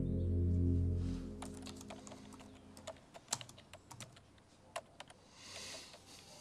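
Laptop keyboard being typed on: irregular key clicks, after low sustained music fades out in the first second or so. A soft hiss follows near the end.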